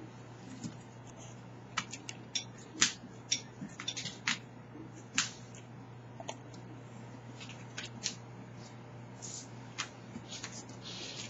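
Irregular sharp clicks and taps of a coonhound's claws on a hard floor and furniture as the dog moves about, over a steady low hum.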